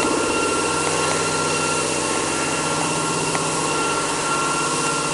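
Aerosol can filling production line running: a steady mechanical hum with a constant high whine.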